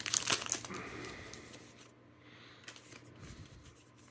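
Crinkling of a torn-open foil trading-card booster pack and the rustle of its cards being handled and slid. It is busiest in the first second, then fades to faint scattered ticks.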